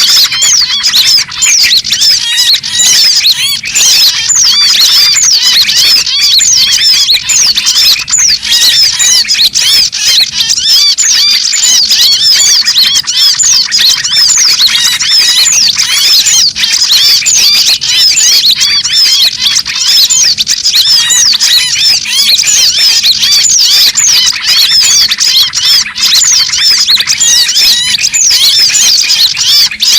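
Bird-lure recording of many small songbirds calling at once: a dense, loud, unbroken mass of overlapping high chirps and quick squeaky pitch sweeps. A noisy, agitated small-bird chorus of the kind used to draw small birds in to lime-sticks.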